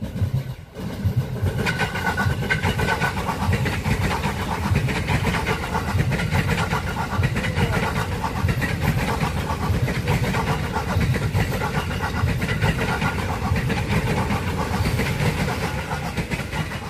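KRL commuter electric train running past, a loud steady rolling noise from the wheels on the rails with a whine over it, coming up suddenly about a second in as the cars reach the microphone.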